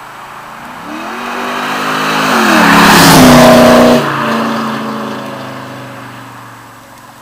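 2004 Pontiac GTO's LS1 V8 with long-tube headers and a Flowmaster cat-back exhaust, accelerating hard past the microphone. The engine note climbs in pitch and level, drops suddenly about four seconds in, then fades as the car drives away.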